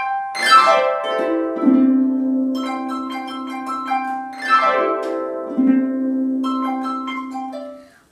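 Pedal harp playing: plucked notes, then two sweeping downward glissandi about four seconds apart, each ending on a low note left ringing. The music fades out near the end.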